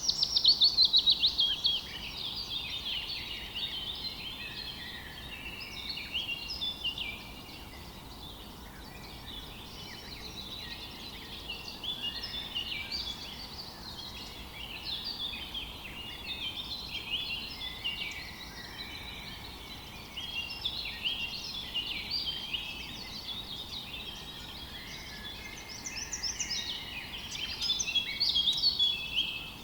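Many small birds chirping and singing at once, a dense overlapping chorus of short chirps and trills. It is loudest at the start and again near the end, where a rapid falling trill stands out.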